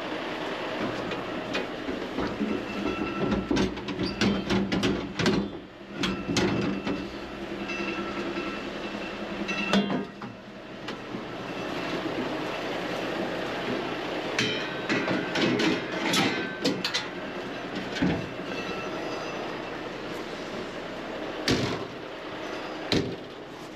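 Metal clanking and rattling as a steel step ladder and other gear are pulled from a truck locker and handled, with repeated sharp knocks scattered through, over a steady mechanical hum.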